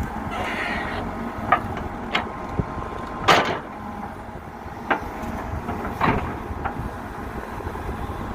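Backhoe loader's diesel engine running steadily, with about five sharp metallic clanks and short scrapes from the working gear, the loudest about three seconds in.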